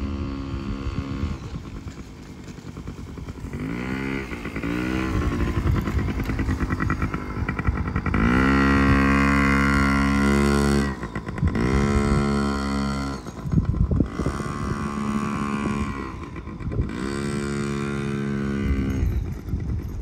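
Yamaha PW50 mini dirt bike's small two-stroke single-cylinder engine being ridden, revving up and dropping back several times with the throttle; the longest and loudest rev is held for a few seconds just past the middle.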